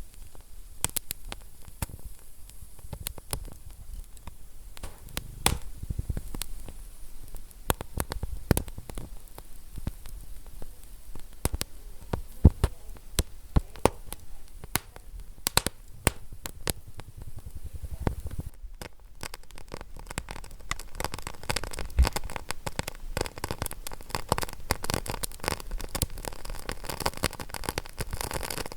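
Wood fire crackling, with irregular sharp pops and snaps over a low rumble. About two-thirds of the way in there is a brief dip, and the crackle turns denser and more hissing.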